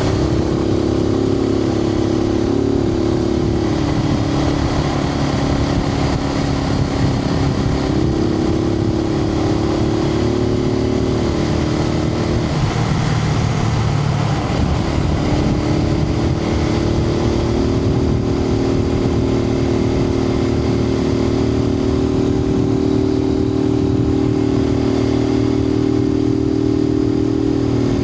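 Suzuki TU250X's 250 cc air-cooled single-cylinder engine running at a steady cruise, heard from inside the rider's helmet under a rush of wind noise. About halfway through, the engine note wavers for a couple of seconds, then holds steady again.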